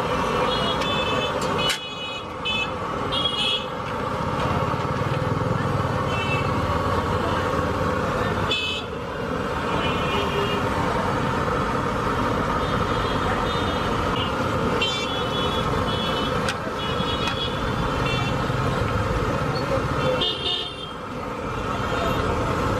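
Busy street traffic noise with frequent short horn toots scattered throughout.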